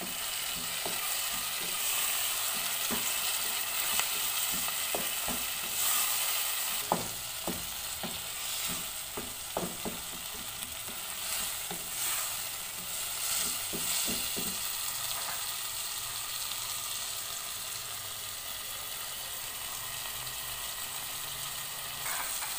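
Chopped tomatoes and onions sizzling in a frying pan as they cook down, stirred with a wooden spatula that knocks and scrapes against the pan many times through the first half. The stirring then stops and the steady sizzle continues on its own.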